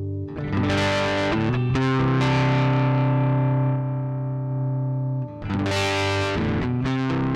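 Les Paul Standard electric guitar on its middle pickup, played through the clean channel of a Joyo R-15 Preamp House pedal. Chords are strummed and one is left ringing for about three seconds, then a fresh run of strums comes near the end.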